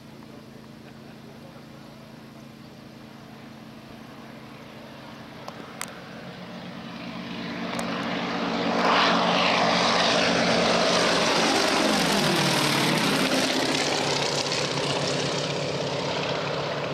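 A Yak-50 and a Yak-52 flying past together, their nine-cylinder M-14P radial engines and propellers growing louder over several seconds. They are loudest about nine to thirteen seconds in, where the pitch drops as they pass, then ease off. A couple of faint clicks come shortly before the planes get loud.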